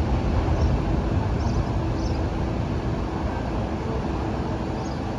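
New York City subway train running along the elevated Jerome Avenue Line track, a steady rumble that slowly fades.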